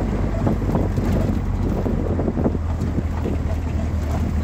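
Vehicle driving on a rough dirt mountain road, heard from inside the cabin: a steady low drone from the engine and tyres, with many small knocks and rattles over it.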